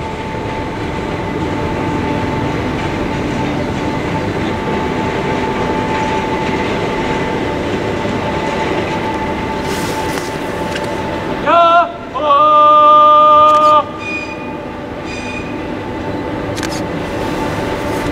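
Oigawa Railway Abt rack-and-pinion train climbing the grade under its electric locomotive: a steady running and gear noise with a faint steady whine. About halfway through, a man's loud shouted "Yahoo!", its last note held for over a second, drowns the train briefly.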